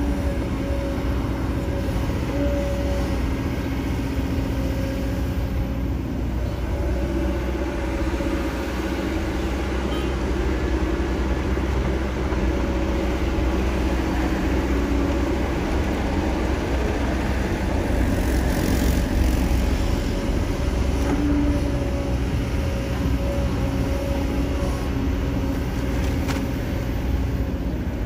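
Kobelco SK200 tracked excavator's diesel engine running steadily under load as the machine digs mud and swings its loaded bucket over a dump truck, with a louder stretch about two-thirds of the way through.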